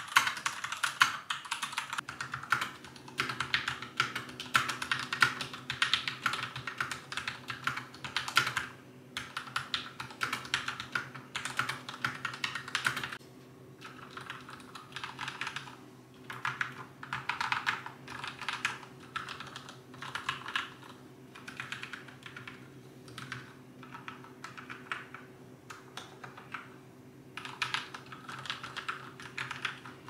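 Typing on a keyboard: fast runs of keystroke clicks with short pauses, softer in the second half.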